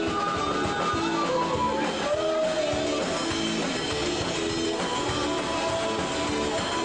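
Music with guitar, short notes repeating in a steady rhythm.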